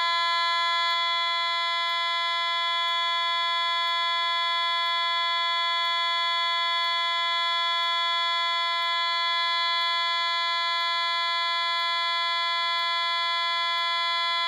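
AE&T T105N fire alarm sounder playing its tone 32, one steady, unbroken tone rich in overtones, without any rise, fall or pulsing. It switches on abruptly and cuts off abruptly.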